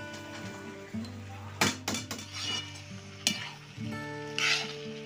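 Chopped flat beans (ballar) and karonda sizzling in hot oil in a kadhai as a metal spatula stirs them, clinking sharply against the pan several times, with a louder hiss of frying a little before the end. Background music with steady held notes plays underneath.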